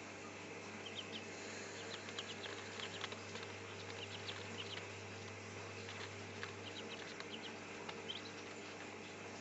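Ducklings peeping: short, faint, high chirps scattered through, over a steady low hum.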